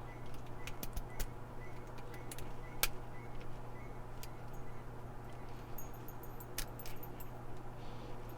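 Lock pick and tension tool working inside a laminated steel padlock: scattered light metallic clicks and ticks as the pins are picked, over a steady low hum.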